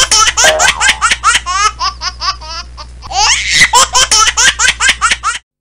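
Canned laughter sound effect: fast, repeated bursts of hearty laughing, loud throughout, cutting off abruptly near the end.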